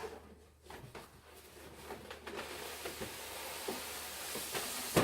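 Packaging being handled and slid out of a collectible statue's box: a steady scraping, rustling hiss that builds over the last few seconds and ends in a sharp knock.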